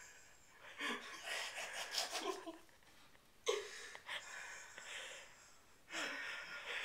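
A weird noise made by Cody: four breathy, hissing sounds, each about a second long, beginning with a short rough low note.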